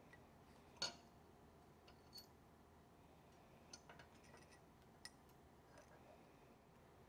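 Faint, scattered clicks and clinks of small steel parts of a replica 1851 Navy revolver being handled against a steel workbench, the sharpest just under a second in.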